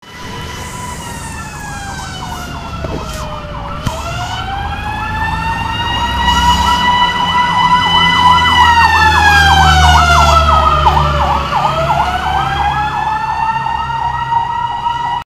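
Fire truck siren sounding two tones at once: a fast warble of about three cycles a second over a slower wail that falls and rises twice. The truck's engine rumble swells to its loudest midway as it passes close by.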